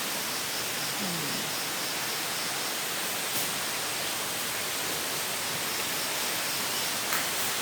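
Steady outdoor hiss, with a faint high-pitched chirping that pulses a few times a second through the middle.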